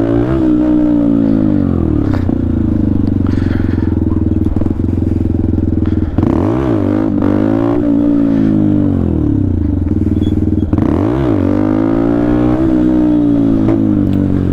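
Benelli TNT 125's single-cylinder engine revved hard and eased off again and again under the throttle, its pitch climbing and falling in three big swells, as the rider tries to lift the front wheel for wheelies.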